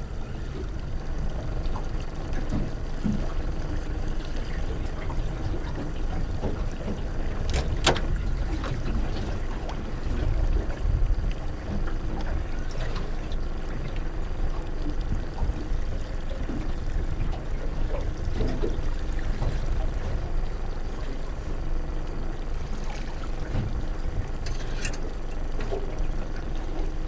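Small boat's outboard motor running low at trolling speed with water sloshing and trickling against the hull, under a steady wind-like rumble. A sharp click about eight seconds in and another near the end.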